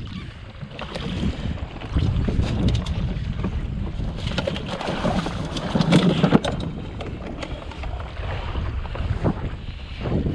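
Wind buffeting the microphone over water slapping against the jetski's hull, with a run of clicks and knocks from fishing gear being handled a little past the middle.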